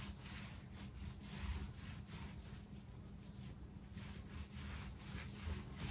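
Small paint roller being rolled back and forth over a flat cabinet door, applying a thin coat of white paint: soft, repeated rubbing strokes.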